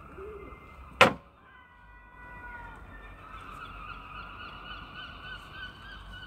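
A single sharp slap about a second in as a spiral-bound sketchbook's cover is flipped open onto the page beneath. Under it runs a steady, wavering high-pitched sound at several pitches at once.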